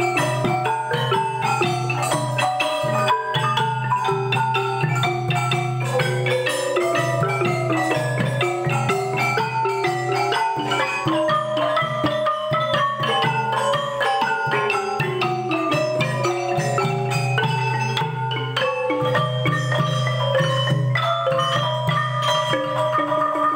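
Khmer pinpeat ensemble music led by roneat xylophones, their wooden bars struck with mallets in quick, continuous runs of notes.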